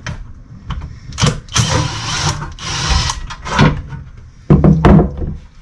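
Tool and metal clatter from work on a Ford F-150's automatic transmission: a run of sharp clicks and knocks, a longer scraping, rushing stretch in the middle, and heavy thuds near the end.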